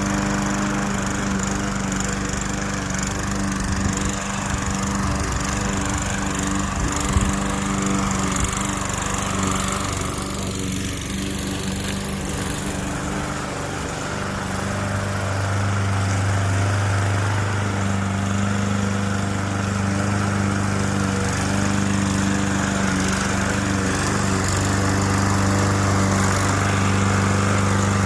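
Gas walk-behind lawn mower engine running steadily while cutting grass, its hum growing a little louder about halfway through, with a couple of brief sharp clicks early on.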